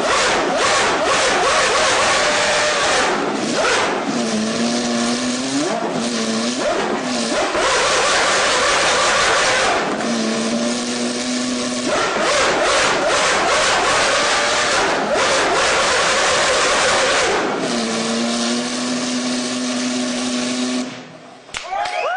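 Formula One 2.4-litre V8 engine at high revs, with rapid gear changes breaking the note. Several times it drops back through the gears in steps with throttle blips, then holds a steady low note, before revving up again. It cuts off about a second before the end.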